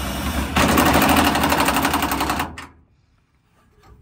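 Cordless impact driver fastening the battery tray hold-down: it spins, then hammers in a rapid rattle for about two seconds as the fastener tightens, and stops about two and a half seconds in.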